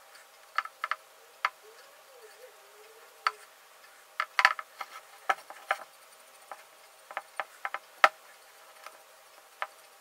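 Light, irregular clicks and taps, about a dozen, bunched together a little before the middle, with the sharpest one near the end: a hard clay mask and a paintbrush being handled on a table.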